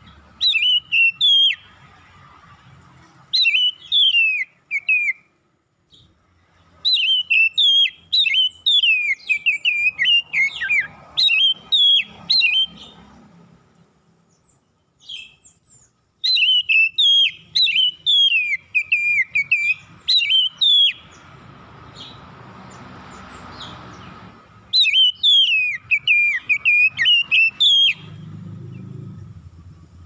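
Oriental magpie-robin (kacer) singing: five bursts of fast, sweeping whistled phrases, separated by pauses of a few seconds.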